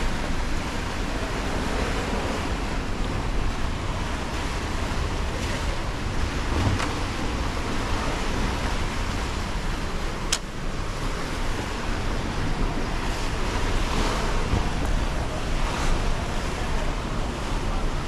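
Steady rush of water pouring down a concrete dam spillway into the channel below, with wind rumbling on the microphone. A single sharp click about ten seconds in.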